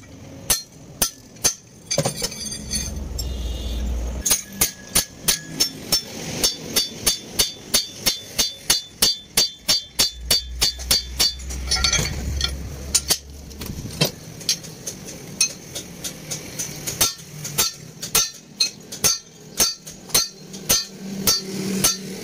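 Hammer blows on a steel leaf-spring leaf over an anvil, each strike ringing, coming in a fast run of about three a second and then in looser groups.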